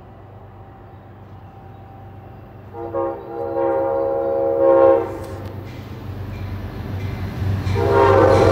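Passenger train air horn sounding a multi-note chord: one blast of about two seconds starting about three seconds in, then a second, louder blast near the end, over the low rumble of an approaching train.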